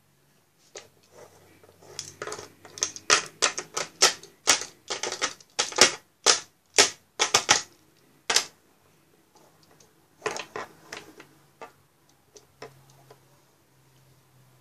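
Plastic toys being handled and knocked against a hard surface: a fast, uneven run of sharp clicks and knocks, thinning out after about eight seconds into a few scattered taps.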